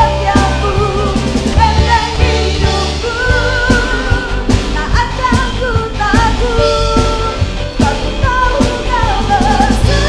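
A worship band playing a praise song: a sung melody over drums, bass guitar, electric guitar and keyboard, with a steady drum beat throughout.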